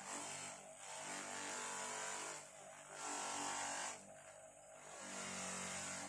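A 3M abrasive wheel spinning on a motor, giving a steady hiss as a small adjustable wrench is held against it to scour its nooks; the hiss dips and swells three times as the piece is shifted, over a low motor hum.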